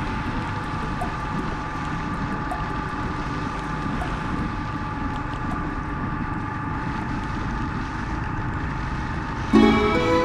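Motorbike engine running steadily under way, with wind and road noise over the microphone. Music comes in suddenly near the end.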